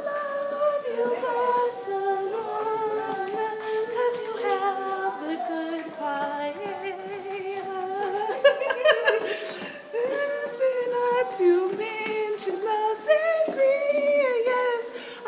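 A woman singing alone, holding notes and sliding between them.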